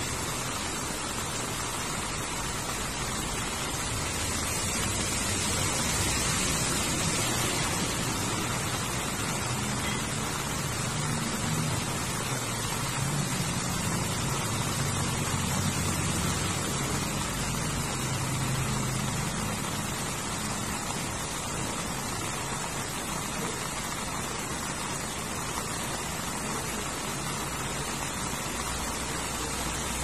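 Heavy rain falling steadily on grass and the ground, an even hiss with no break. A low rumble swells up and fades away in the middle.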